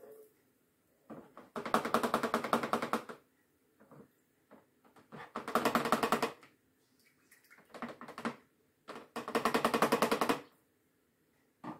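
Three bursts of fast, even clicking, about a second or so each, as a utensil is beaten rapidly against a small bowl.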